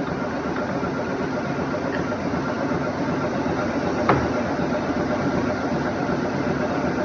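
Steady machinery hum from a CNC lathe in the shop, with a single sharp knock about four seconds in.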